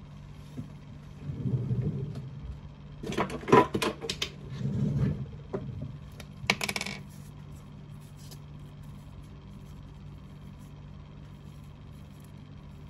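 Metallic clinks and clacks of a Zippo lighter being handled, in two clusters a few seconds apart, with dull handling thumps between them; after that only a steady low hum.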